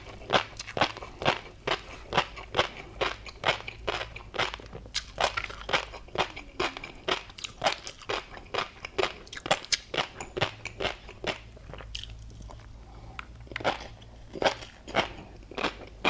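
Close-miked chewing of tobiko (flying-fish roe) with a crunchy seafood topping: quick, steady crunching bites, about three to four a second, thinning briefly about twelve seconds in.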